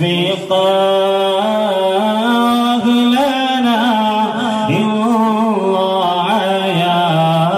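A man singing an Arabic devotional madh song (salawat on the Prophet), drawing one word out into a long, ornamented melismatic phrase with gliding, wavering pitch.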